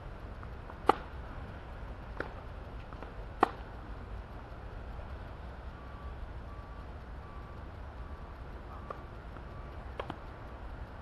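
Tennis rally: sharp pops of a tennis ball off racket strings and the court, a loud one about a second in, a fainter one near two seconds, the loudest about three and a half seconds in, and a faint one near ten seconds, over a low steady outdoor rumble.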